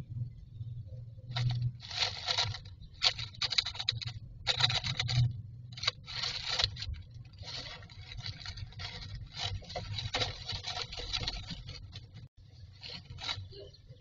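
Common myna shuffling about in its nest box, its body and feet scraping and rustling the dry grass and plastic nest lining in irregular bursts, over a faint steady low hum.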